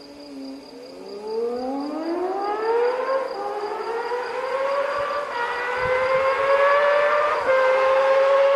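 Honda CBX 1050's carbureted 1047cc inline-six DOHC engine revving out under hard acceleration. It sounds like a high, smooth wail whose pitch climbs steeply from about a second in, then keeps rising, with two brief drops in pitch about five and seven and a half seconds in.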